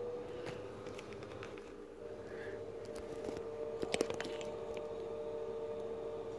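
Light clicks and taps from a plastic toy airliner model being handled and moved over a tabletop, with a louder cluster about four seconds in, over a faint steady hum.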